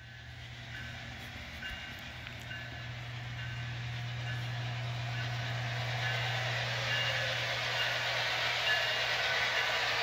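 HO-scale model trains running on the layout's track: a steady rolling rumble of wheels on rails that grows louder, with brief high squeaks now and then and a steady low hum beneath.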